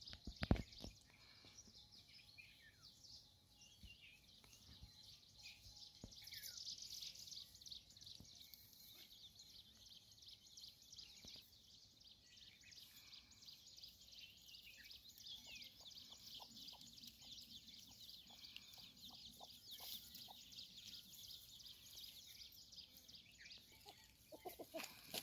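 Faint, soft clucking from a foraging rooster and hen, with a run of short clucks past the middle, over a steady faint high-pitched chirring in the background. A sharp knock sounds right at the start.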